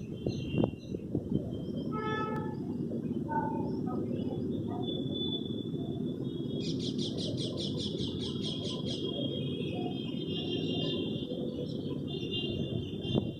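Several birds chirping and calling, with a rapid high trill lasting about two seconds from roughly seven seconds in, over a steady low background rumble.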